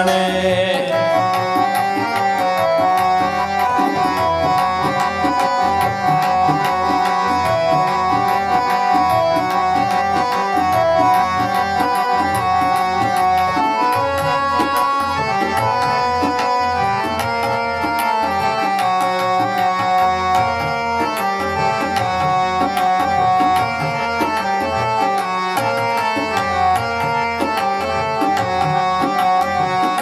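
Instrumental interlude of shabad kirtan: two Crown Flute reed harmoniums playing the melody together over steady tabla drumming.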